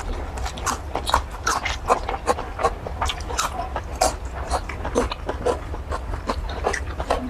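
Close-miked mouth sounds of someone eating squid in curry: wet chewing and smacking, with quick irregular clicks several times a second.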